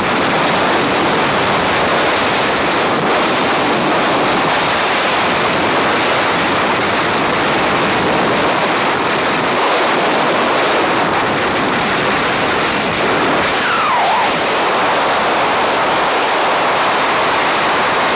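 Steady, loud rush of freefall air buffeting a helmet-mounted camera's microphone during a skydive.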